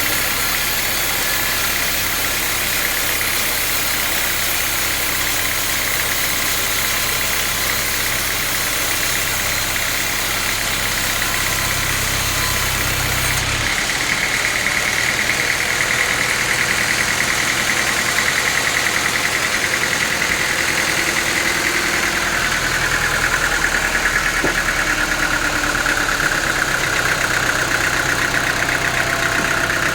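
Sawmill saw running steadily while sawing teak. Its tone changes about halfway through.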